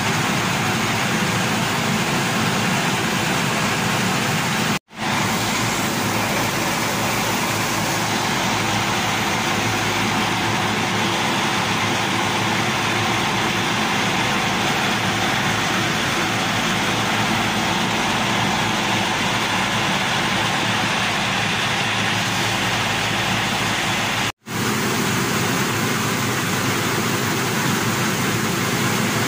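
Rice mill machinery running: belt-driven hulling and polishing machines making a loud, steady mechanical din, with grain and husk rushing through the chutes. The noise stops dead twice, briefly.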